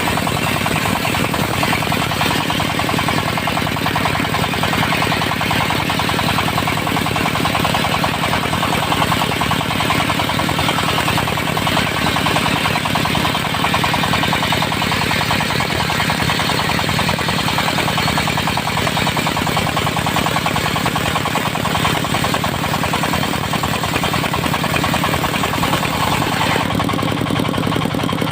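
Diesel engine driving a circular sawmill blade, running steadily with a rapid knocking beat while the blade cuts dry teak, giving a hissing saw noise on top. Near the end the higher saw noise eases off.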